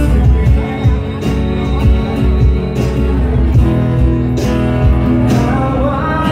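Live acoustic band: two strummed acoustic guitars with percussion keeping the beat and a male singer.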